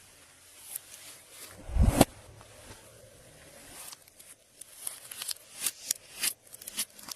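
Glossy slime being squished and stretched by hand, giving sticky clicks and pops that come thick and fast in the second half, with one heavy thump about two seconds in.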